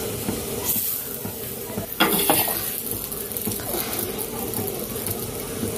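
Metal spatula scraping and knocking against an iron tava as a roti is turned and pressed, over a steady hiss from the cooking; the loudest clatter comes about two seconds in.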